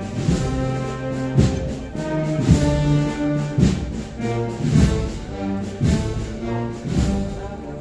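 Brass band playing a slow processional march, held brass chords over a heavy drum stroke about once a second.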